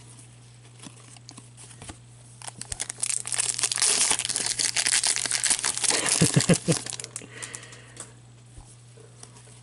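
A shiny trading-card pack wrapper being torn open and crinkled by hand, a dense crackling that starts about two and a half seconds in and stops about eight seconds in.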